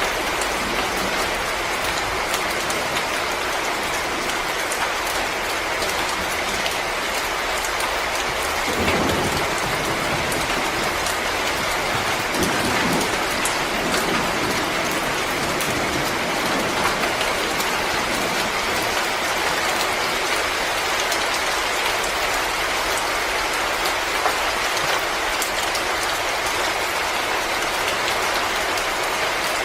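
Wood fire crackling steadily in a fireplace, a dense stream of small pops and snaps over a hiss. Two brief, deeper low rumbles come about nine seconds in and again around thirteen seconds.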